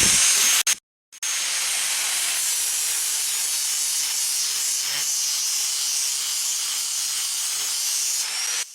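Power tool spinning a sanding disc against the steel of a welded machete blade, a steady abrasive hiss over a faint motor hum. It stops briefly about a second in, then runs on steadily until just before the end.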